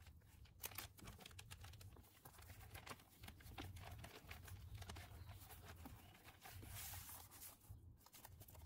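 Near silence: faint room tone with scattered light rustles and small clicks, the sound of a small parts kit being handled.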